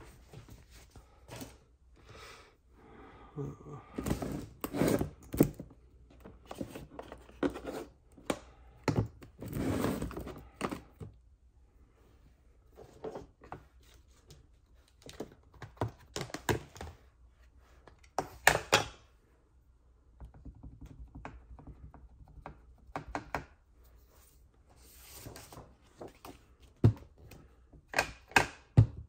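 Paper-crafting handling sounds: cardstock and paper being moved and rustled on a work table, with irregular thunks and taps in clusters and quiet gaps between them.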